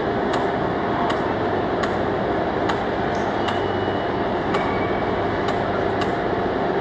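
Steady loud workshop machinery din, with a sharp click about once a second.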